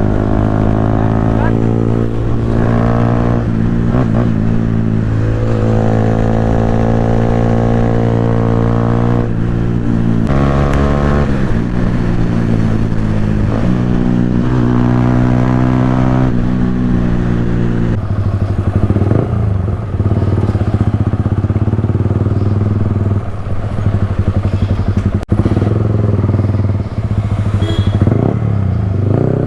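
Yamaha R15's single-cylinder engine through a loud aftermarket Akrapovic exhaust, accelerating with its pitch rising and dropping back at each gear change during the first half, then running at a steadier note for the second half.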